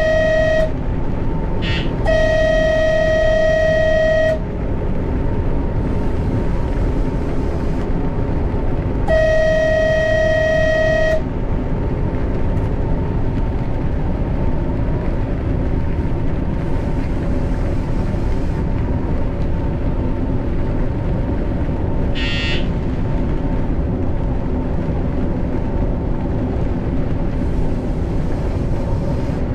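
Train running steadily, its horn sounding a single-pitched tone three times: the end of a blast right at the start, then two blasts of about two seconds each, about two and nine seconds in. A brief high-pitched sound comes about 22 seconds in.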